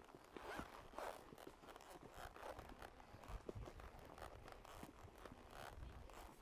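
A horse walking along a dirt trail: quiet, irregular hoof crunches and scuffs, with faint rustling.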